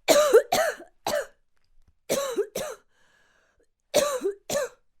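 A person coughing in three bouts of two or three harsh coughs each, with short pauses between.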